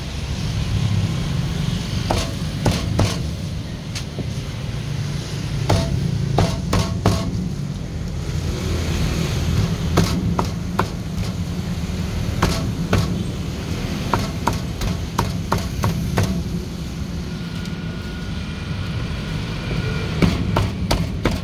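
Meat cleaver chopping a roasted duck on a cutting board: irregular sharp chops, over a steady low background rumble.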